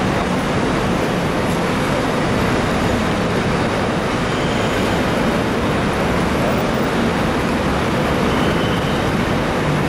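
Steady rumble of a hard-shell suitcase's wheels rolling over pavement, mixed with traffic noise.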